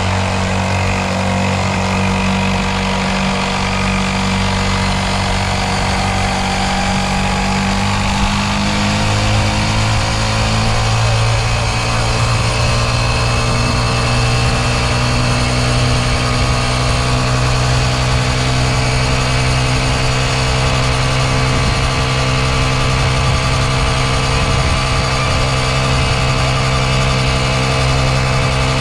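Motorcycle engine running steadily, its pitch rising somewhat about eight to eleven seconds in and then holding.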